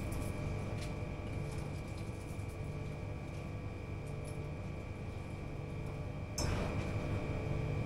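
Steady electrical room hum with a thin high whine and a few faint light clicks. A louder rushing noise comes in about six seconds in.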